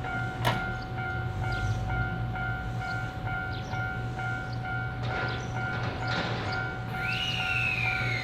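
Electronic warning bell of a Japanese railway level crossing ringing in an even, repeating ding-ding a little under twice a second, over a low rail-traffic hum. Near the end a high whine from the passing train glides down in pitch.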